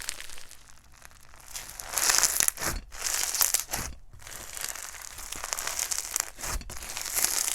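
Crunchy clear jelly floam slime being squished and worked, its foam beads crackling and crunching in swells, loudest about two and three seconds in and again near the end.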